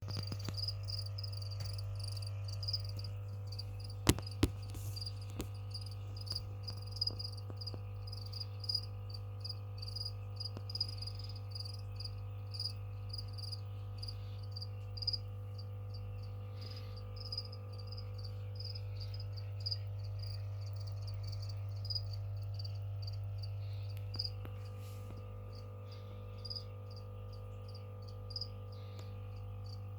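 Feeder cricket chirping in a steady, regular rhythm, about two high chirps a second, over a steady low electrical hum. A few sharp clicks sound about four seconds in.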